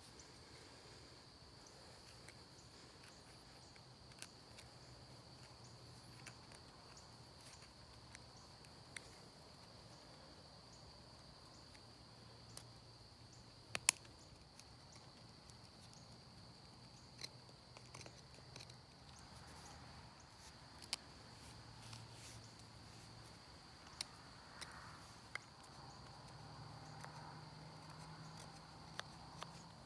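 Steady, faint, high-pitched insect trill, with scattered sharp clicks of a knife cutting a wooden stick by hand; the loudest click comes about 14 seconds in.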